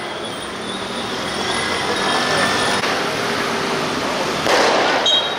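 Outdoor street noise with indistinct voices, and a single loud crash about four and a half seconds in that rings briefly.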